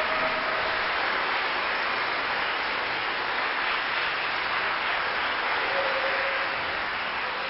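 Concert-hall audience applauding steadily, a dense even clapping that eases slightly near the end.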